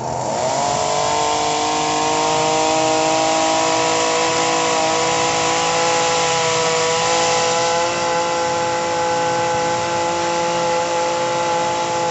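A machine's motor starts up and runs steadily with a droning hum. It rises in pitch over the first second, then holds.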